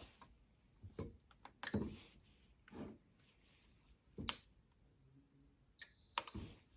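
An Osaka Siren MK-10 siren amplifier being handled and operated: several separate clicks and knocks, a very brief high beep about two seconds in, and a louder, steady high beep lasting about half a second near the end.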